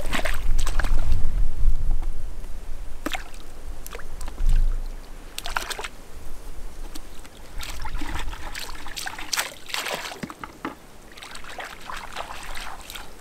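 Caught fish being released back into the water: water sloshing and trickling, with scattered irregular splashes. A low rumble runs through the first few seconds.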